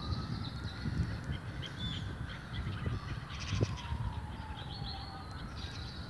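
A flock of gulls calling: many short, overlapping cries, with a low wind rumble on the microphone. Underneath, a faint tone slowly rises and falls.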